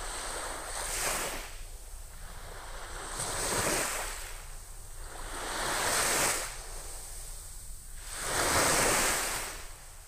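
Small sea waves breaking and washing up a sandy beach: four swells of surf, about one every two and a half seconds, the last the loudest.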